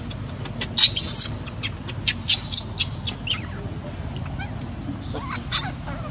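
Newborn macaque giving a quick series of sharp, high-pitched squeaks, some falling in pitch, then a few fainter ones near the end, while its mother handles it and pulls it to her.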